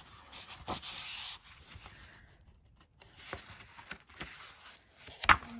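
Sheets of patterned card paper sliding and rustling against each other as they are leafed through, then a single sharp tap about five seconds in.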